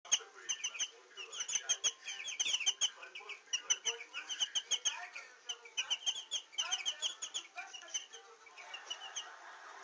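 Young turkey poults peeping: rapid, high-pitched short peeps in quick succession, mixed with soft knocks and thumps, and thinning out near the end.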